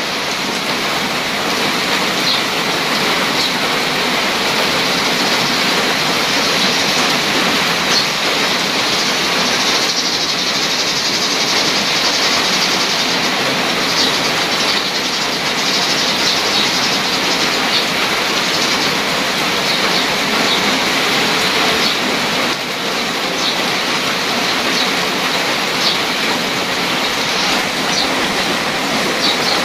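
Steady rain falling onto a shallow puddle and wet gravel, an even hiss with small sharp drop splashes standing out now and then.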